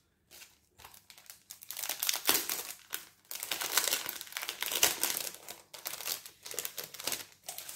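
Paper and card crinkling and rustling as they are handled, in irregular bursts that start about a second and a half in.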